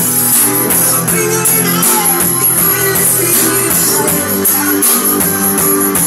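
Music with a steady beat played loud through a Konzert SG-series loudspeaker cabinet during a sound check.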